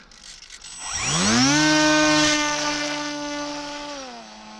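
Model aeroplane's motor and propeller: a whine that climbs sharply in pitch about a second in as the throttle opens, holds high and steady, then drops a little in pitch and fades somewhat near the end as the plane flies off.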